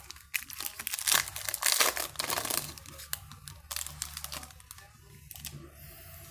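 Foil wrapper of a Bowman Chrome uncirculated card pack crinkling and tearing as it is opened by hand. The crackling is densest in the first three seconds and thins out to sparse rustles near the end.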